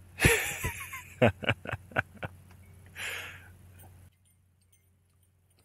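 A man calling a dog to him: one loud call, then a quick run of five short sharp sounds at about four a second and a softer hiss near the end, before it falls to near silence.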